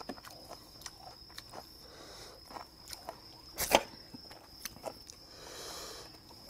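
Light scattered clicks and taps of steel tongs and chopsticks against plates and kimchi as food is served, with one sharper clack a little under four seconds in.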